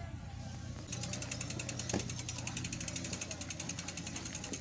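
Bicycle freewheel hub ticking rapidly and evenly as the bike coasts. The ticking stops for about a second near the start, then resumes, with a single knock about two seconds in.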